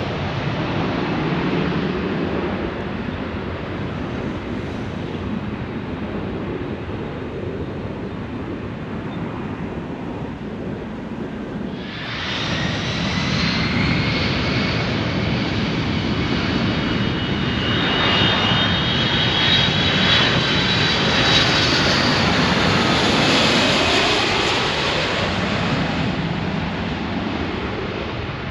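Jet airliner coming in to land, its engines passing over. A steady rumble gives way about twelve seconds in to a sudden high whine of several tones that grows loudest about two-thirds of the way through, then fades.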